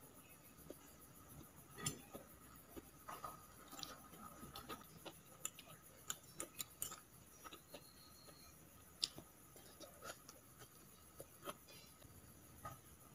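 Metal fork and spoon clinking and scraping against a plate while noodles are twirled and scooped, in scattered light clicks; the sharpest come about two seconds in and about nine seconds in.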